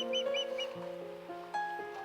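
Background music of slow held chords. Over the first half second comes a quick series of sharp, high whistled chirps, about five a second, from ospreys calling; the chirps then stop and the music carries on alone.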